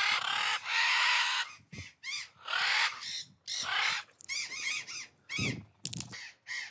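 Parrots squawking, macaws among them: about a dozen short, harsh calls, roughly two a second, with one longer call about a second in.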